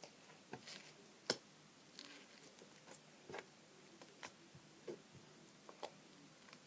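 Faint, scattered soft clicks and small wet pops from slime being squeezed and worked by hand with liquid activator added, about a dozen in all, the sharpest one about a second in.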